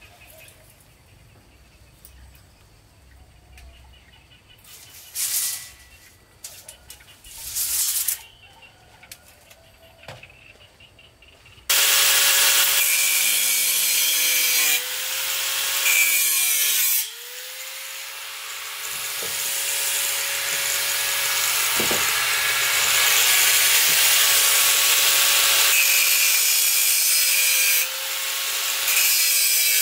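Angle grinder cutting through metal roof-frame tubing: after two short bursts, it runs continuously from about twelve seconds in, a loud grinding hiss over a steady motor whine that dips briefly as the disc bites, and cuts off at the end.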